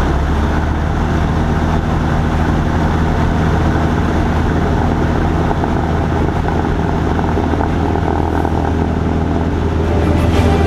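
Single-engine Cessna's piston engine and propeller running steadily. Music comes in near the end.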